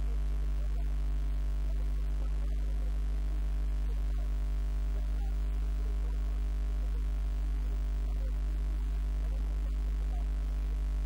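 Steady electrical hum: a strong low drone with several fainter steady overtones above it, unchanging throughout.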